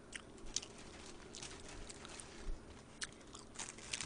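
Paper burger wrapper rustling and crinkling as the burger is picked up and unwrapped: a faint scatter of small crackles that grows denser near the end.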